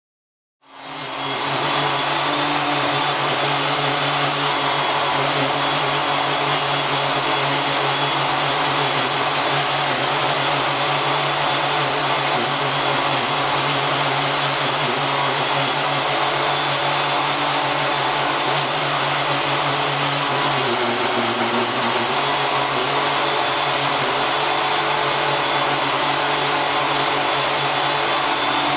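Motor of a power cutting tool starting up and then running steadily at a constant pitch, with a short dip in pitch about twenty seconds in.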